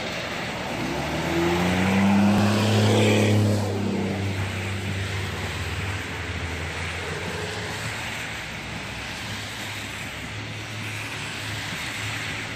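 Cars driving through a flooded street: tyres hissing and splashing through deep standing water over the engine noise of passing traffic. One vehicle's engine grows loud and passes about two to three seconds in, then the steady wash of tyres in water goes on.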